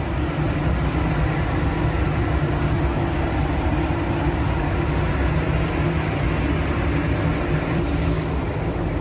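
Steady rushing air with a low hum from a car paint spray booth, its ventilation running while clearcoat is sprayed.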